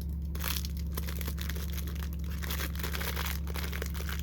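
Packaging being handled, crinkling and rustling in quick, irregular crackles, over a steady low electrical hum.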